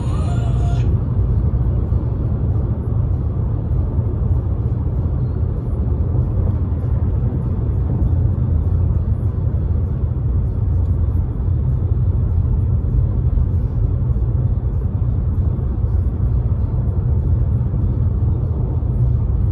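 Steady low rumble with a fainter hiss above it.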